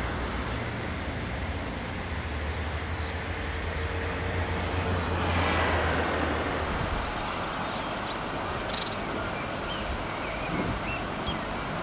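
Outdoor road traffic: a motor vehicle passes, loudest about five to six seconds in, over a steady low rumble that drops away about seven seconds in.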